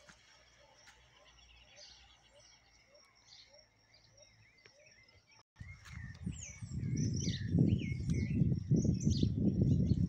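Birds chirping and calling outdoors, with short high chirps and curving calls. About halfway through the sound drops out for a moment, then a loud, irregular low rumble on the microphone covers the rest while the birds keep calling.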